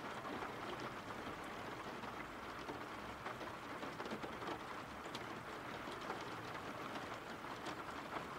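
Steady rain falling, with scattered single drops ticking through it.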